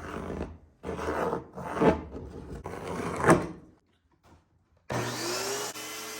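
Wood handling: a rough-cut pine board and speed square shifted and scraped across a work table, with two sharper scrapes. After a short pause a steady humming tone starts, rising slightly in pitch as it begins.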